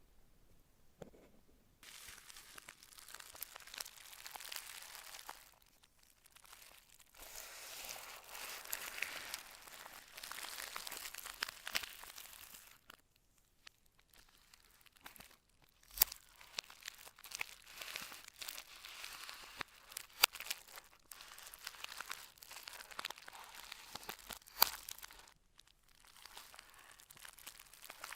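Phone-box packaging being handled: crinkling and tearing of paper and plastic wrap in stretches. Three sharp clicks or taps come about four seconds apart in the second half.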